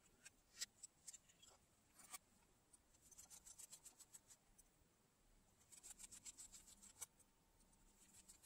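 Faint rapid ticking from a precision screwdriver turning a small screw in the plastic body of a Feiyutech WG2 gimbal, in two short spells. A few separate clicks come earlier as parts are handled.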